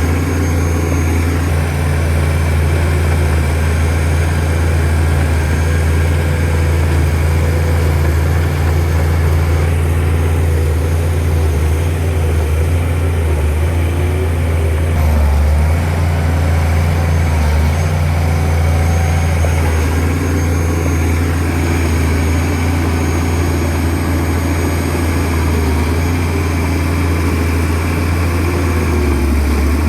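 Shantui DH17C2 bulldozer's diesel engine running, a steady heavy low drone.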